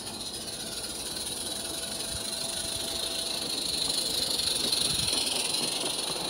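Small live-steam garden-railway locomotive, an Accucraft Baldrick, hissing steam as it approaches and runs past pulling its coaches, loudest about five seconds in.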